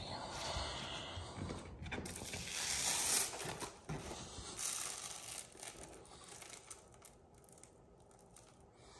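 Rustling and crinkling of a sheet of wallpaper being peeled back from the wall and handled. It is loudest in the first few seconds and dies down after about five seconds.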